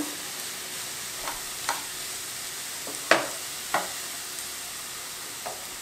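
A wooden spatula stirring cooked, chopped red amaranth leaves in a nonstick pan, over a soft steady sizzle from the still-hot pan. A few light knocks of the spatula on the pan come through, the sharpest about three seconds in.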